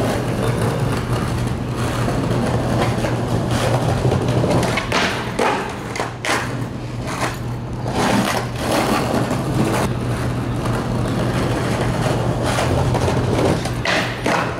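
Skateboard wheels rolling over stone paving with a steady rumble, broken by several sharp clacks of the board striking the ground. Near the end there are two more clacks as the board goes onto a planter ledge.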